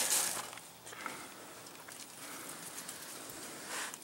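Quiet outdoor ambience: a faint even hiss with a few soft ticks and rustles, and no clear event.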